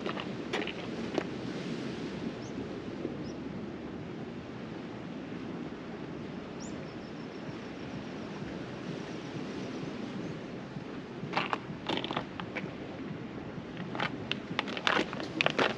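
Steady wind and sea noise on an open shore, with scattered sharp clicks and crunches in two clusters near the end.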